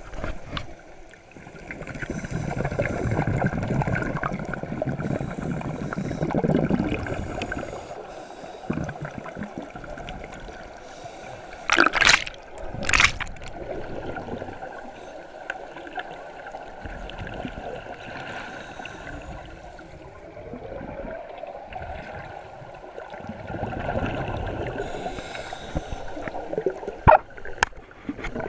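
Underwater pool sound of scuba divers' exhaled bubbles gurgling and bubbling past the microphone, with two sharp knocks about a second apart near the middle.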